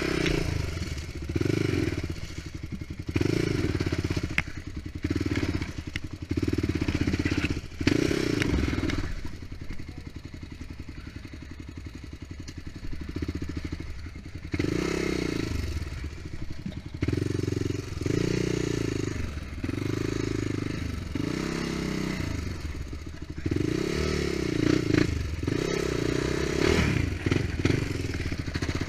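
ATV engine revving up and dropping back over and over as the throttle is worked on a rough trail, easing off for a few seconds near the middle. Thumps and clatter from the machine jolting over rocks run under it.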